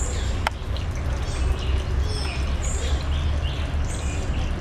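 Short, high chirps that drop in pitch, repeating about once every second and a half, over a steady low rumble; a single sharp click about half a second in.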